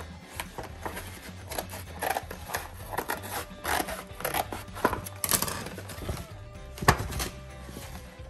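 A mailed package being opened by hand: irregular scraping, rustling and clicking of packaging, with one sharp knock about seven seconds in, over background music.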